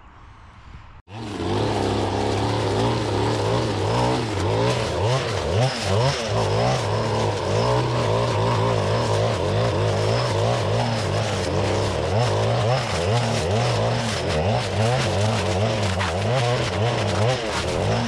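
After about a second of faint outdoor background, a Stihl FS-561C clearing saw's two-stroke engine cuts in suddenly and runs loud at high revs. Its pitch wavers up and down as the blade chews through blackberry bramble.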